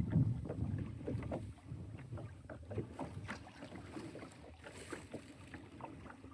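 Water splashing and lapping against the hull of a Perception Pescador Pilot pedal kayak under way, with wind on the microphone. Louder for the first second or so, then easing off.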